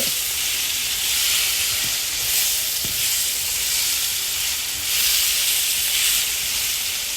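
Bell peppers and onion sizzling in hot oil in a frying pan: a steady hiss that swells a little a couple of times.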